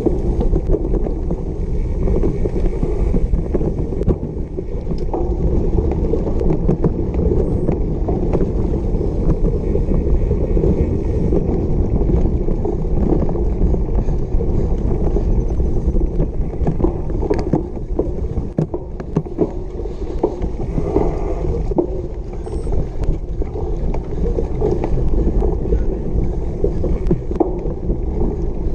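Cyclocross bike ridden fast over bumpy grass: steady wind buffeting the microphone and tyre rumble, with frequent short rattles and knocks from the bike jolting over the ground.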